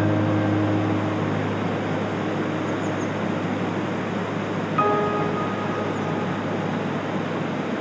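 Steady rush of a shallow stream running over rocks, with sparse soft music over it: a low held note at the start and a struck chord of several ringing notes about five seconds in.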